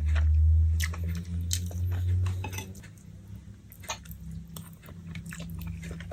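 Close-up chewing of saucy noodles, with cutlery clicking and clinking against a plate. A low hum, loudest, fills the first two and a half seconds, then short clicks and wet crackles.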